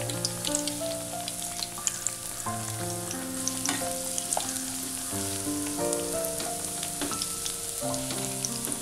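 Batter-coated bread slices sizzling as they deep-fry in hot sunflower oil, with scattered sharp crackles and clicks as a slotted spatula moves them. A gentle melodic background music line plays throughout.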